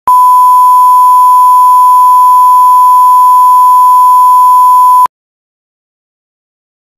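Bars-and-tone test tone: one loud, steady electronic beep at a single pitch, held for about five seconds, that cuts off suddenly.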